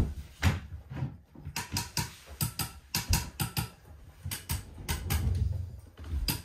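A quick, irregular run of light clicks and taps, thickening about a second and a half in, from small furniture-assembly parts being handled and fitted, with a few dull knocks.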